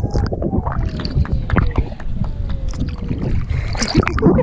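Underwater sound from a submerged GoPro: a heavy low rumble of churning water with many short clicks and bubble pops, and a faint tone sliding slowly downward through the middle.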